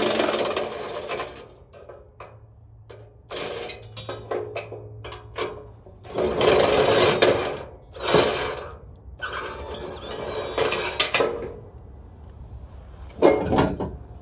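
A handheld cordless power tool whirring in about six short bursts of one to two seconds each, with pauses between them, as it runs bolts out under a vehicle during a 4L60E transmission removal.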